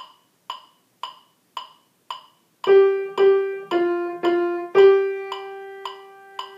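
A steady metronome-like click ticks about twice a second; about two and a half seconds in, a Yamaha grand piano plays five notes in time with it: two on one pitch, two a step lower, then the first pitch again, held and left ringing to the end.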